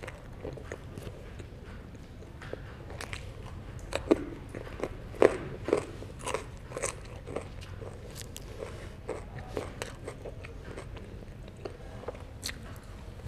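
A person biting and chewing herring, with repeated crunches and clicks that are loudest in a cluster about four to seven seconds in.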